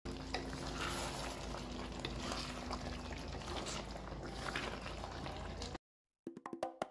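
Chicken stew in tomato sauce simmering in a pan: a steady bubbling hiss with small pops. It cuts off suddenly about six seconds in, and a few light clicks follow near the end.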